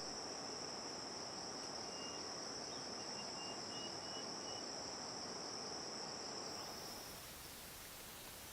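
An insect's steady, high-pitched trill over a haze of background noise; it stops about seven seconds in. A faint row of short, higher notes comes through around the middle.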